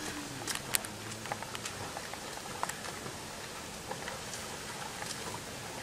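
Light water splashing and dripping around people wading waist-deep, heard as scattered small clicks over a steady faint hiss.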